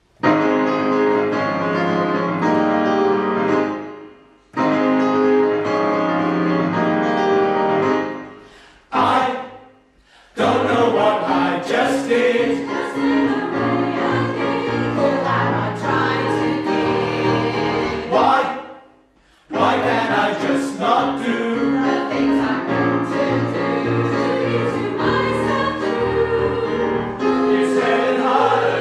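Mixed choir singing in harmony, in sustained phrases broken by several short breaks.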